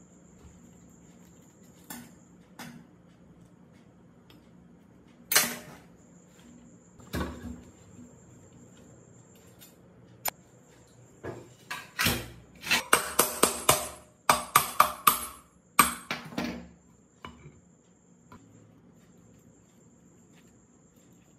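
Metal tools knocking on the metal parts of an old rusted water pump during its restoration: scattered single knocks, then a quick run of about a dozen ringing hammer-like strikes, about four a second, near the middle.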